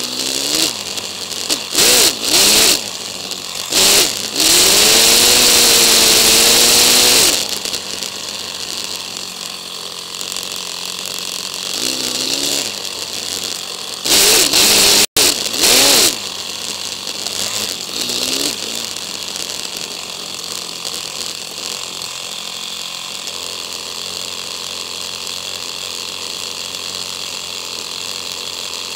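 Motorcycle engine and wind on a bike-mounted camera, played back sped up, so the revs rise and fall in quick glides. Loud bursts of wind rush over the microphone as the bike accelerates: a long one a few seconds in and more around the middle, then steadier running.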